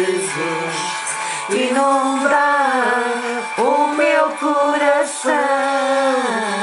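Music from a Portuguese-language Christian worship song, in a stretch without words: a melody line of held, gliding notes over steady backing.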